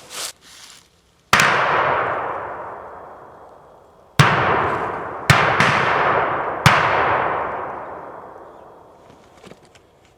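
Five shotgun shots during a deer drive: one single shot, then four more in quick succession about three seconds later. Each blast is followed by a long echo that rolls away over a couple of seconds.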